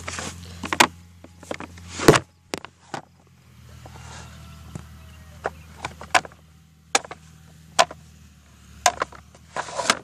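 An engine running steadily in the distance, under a string of sharp clicks and knocks from the phone being handled close to the dry grass.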